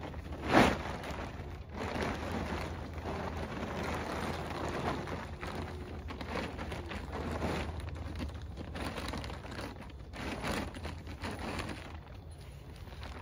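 Plastic greenhouse cover rustling and crinkling as it is handled and pulled over the frame, with a single sharp thump about half a second in.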